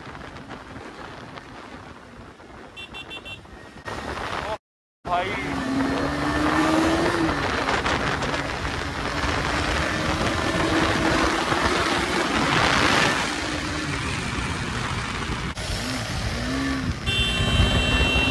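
Single-cylinder KTM 250 Duke motorcycle engine running under throttle at riding speed, with heavy wind noise. The sound cuts out completely for a moment about five seconds in. After that it is louder, and the engine note rises and falls as the throttle is worked.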